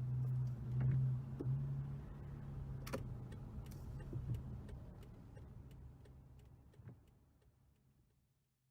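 BMW E92 320i exhaust with a one-off dual muffler, the engine running at a steady low note that swells louder twice in the first second and a half, with a few light clicks, then fading away to silence near the end.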